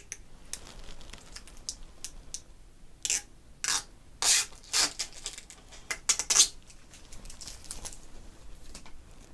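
Protective plastic film being peeled off a motherboard heatsink: a run of short crackling rips, loudest between about three and six and a half seconds in, with light scratching and handling before and after.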